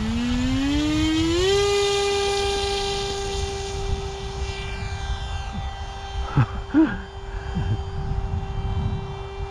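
Small RC flying wing's electric motor and propeller throttling up, the whine rising steeply in pitch and then holding a steady high pitch as the wing runs off its starter trolley and climbs away, over low wind rumble on the microphone. Two short loud noises come a little past the middle.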